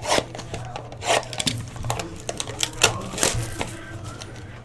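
Trading cards being handled at a table during a pack break: an irregular run of sharp clicks, taps and rubs as cards and packaging are flipped, slid and set down.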